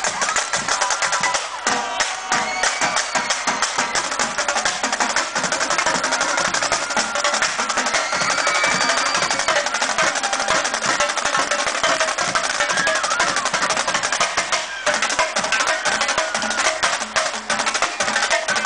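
A fan percussion band drumming a fast, dense rhythm of drum and block strikes, loud and steady throughout.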